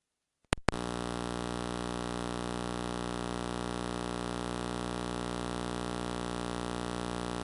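Steady electrical mains hum with a buzz of many overtones on the audio line. It comes in after a brief dropout with a few clicks within the first second.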